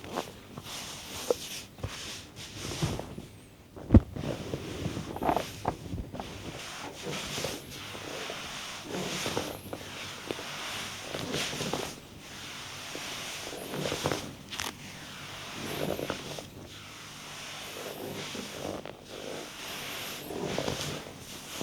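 Massage sounds: hands rubbing and pressing over skin and cloth in repeated swishing strokes every second or two, with scattered soft clicks and one sharp knock about four seconds in.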